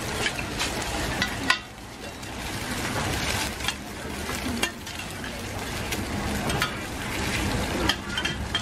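Beaten egg frying in hot oil in a wide steel pan, sizzling steadily, with metal spatulas scraping across the pan and clinking against it again and again, one clink loudest about a second and a half in.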